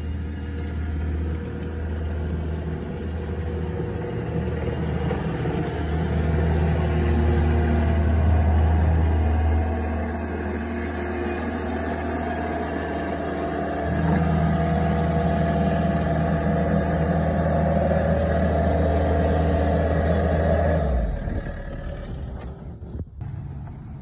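Vermeer S925TX mini track loader's engine running steadily under work, swelling louder twice, and dropping away abruptly about three seconds before the end.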